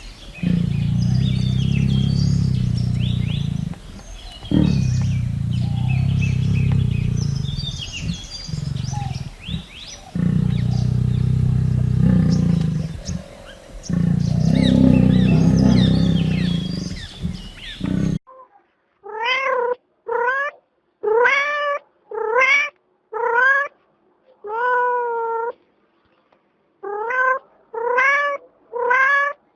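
A cat purring, a low continuous rumble with a few brief pauses. About eighteen seconds in it cuts abruptly to a cat meowing over and over: about a dozen short, rising meows in quick succession.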